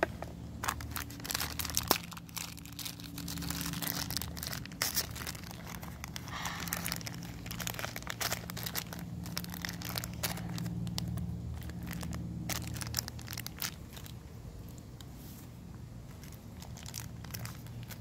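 Small plastic toy packet crinkling with sharp crackles as fingers pull and work at it to open it.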